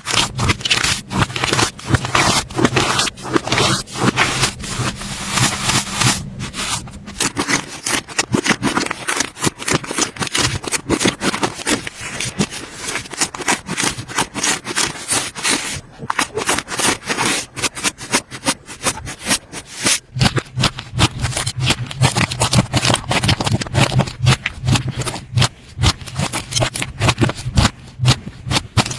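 Slime being squeezed and worked by hand, giving a dense run of rapid, irregular sticky crackles and pops.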